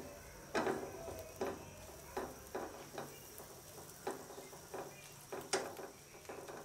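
Silicone spatula stirring minced ginger and garlic frying in butter in a nonstick pan: repeated short scraping strokes, irregularly every half second or so, over a light sizzle.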